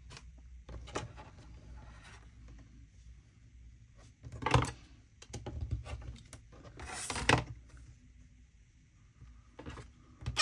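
Scrap fabric being cut and handled at a work table: two short, crisp cutting or rustling sounds, about four and a half and seven seconds in, with a few fainter handling clicks between them.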